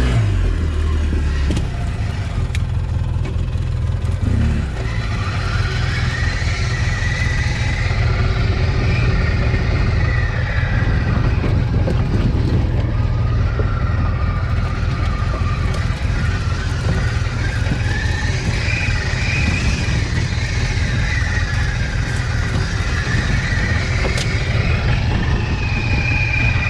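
Polaris RZR side-by-side's engine running as it drives a rough dirt trail: a steady, dense low rumble with a fainter higher whine that rises and falls several times.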